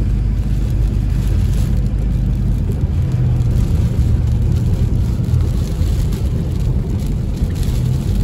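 Steady in-cabin road noise from a lifted vehicle driving on a wet road: a low engine and drivetrain hum with tyre hiss.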